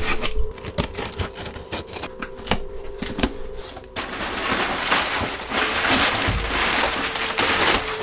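Cardboard shipping box being opened by hand: cardboard flaps and packing material scraped, tapped and crinkled, with quick clicks and scrapes at first and denser rustling from about halfway.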